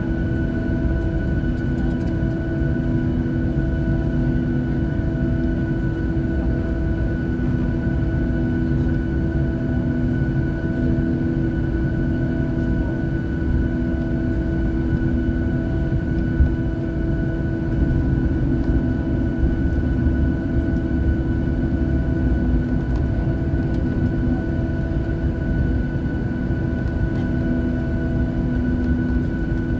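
Cabin noise of a Boeing 737-700 taxiing, heard from a window seat over the wing: its CFM56-7B engines at taxi power give a steady rumbling drone with humming tones, two of which pulse on and off about once a second.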